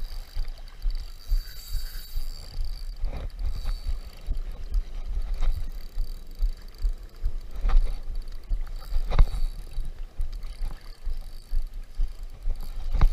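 Spinning reel being cranked against a hooked snook pulling on the line. A low buffeting rumble of wind on the microphone runs under it, with a few sharp clicks.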